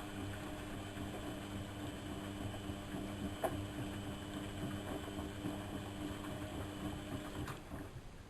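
Lloyds 825 washing machine running with a steady motor hum and a single click about three and a half seconds in; the motor stops shortly before the end.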